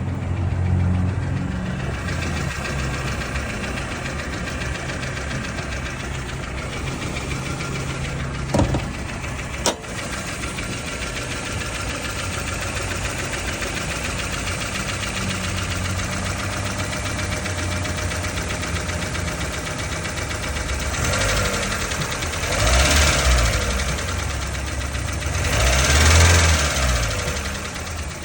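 1994 Toyota Tercel's 1.5-litre four-cylinder engine running with a clicking noise whose cause the owner cannot tell, unsure whether it is normal. Two sharp knocks come a second apart about a third of the way in, and the engine is revved up and back down twice near the end.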